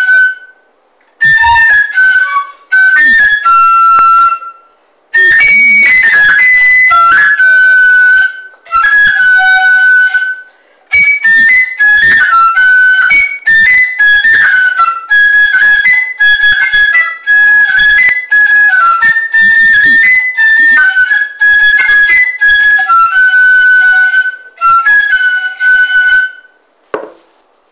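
A solo high-pitched woodwind playing a slow single-line melody in phrases, with short silent gaps between them.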